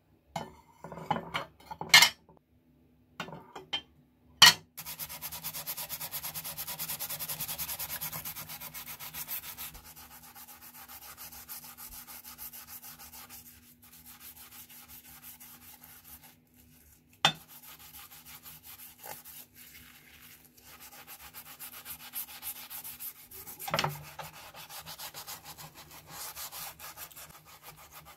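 Wet scrubbing of a steel scissor blade with a scouring pad in a glass dish of soapy liquid: a fast, steady scratching rub. A few sharp clinks of the blade against the glass come in the first few seconds, and single knocks come twice later.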